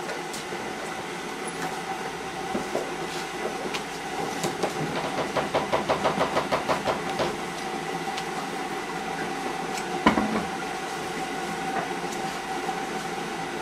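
Bristle brush working oil paint on a canvas: a quick run of scrubbing strokes, about five a second, in the middle, over a steady hum. A single sharp knock about ten seconds in.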